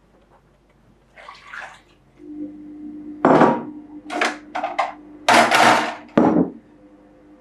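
Hands working at a glass mixing bowl of bread flour on a kitchen scale: several short, loud bursts of noise, one about three seconds in and a cluster of them a little past five seconds, over a faint steady hum.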